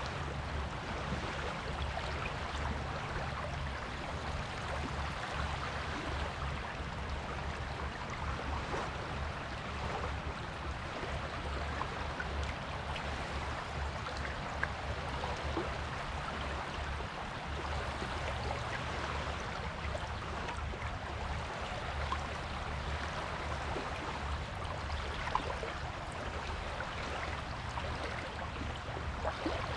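Sea water washing and fizzing on a beach, a steady hiss crackling with many small pops, over a constant low rumble.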